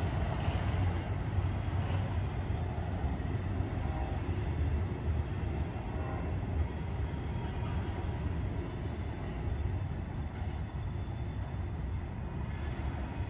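Manifest freight train's cars rolling past on the track: a steady low rumble of wheels on rail that slowly eases off toward the end.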